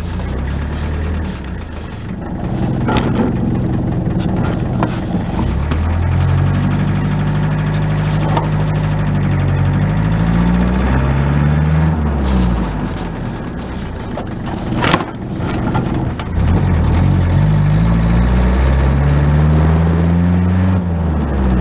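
Ford Sierra's 2.3-litre four-cylinder diesel heard from inside the cabin on the move, its note climbing under acceleration and dropping at each gear change, several times over. There is a sharp knock about fifteen seconds in. The owner is unsure whether this engine sound is normal or a sign of a fault.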